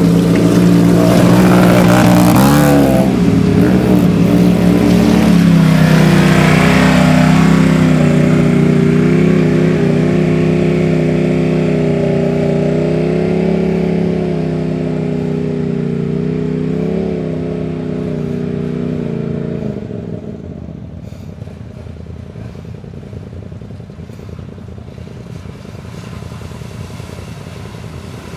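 Side-by-side UTV engine running close by as it works through a mud hole, revving up twice in the first several seconds and then holding a steady pitch. It fades as the machine moves off, about two-thirds of the way through.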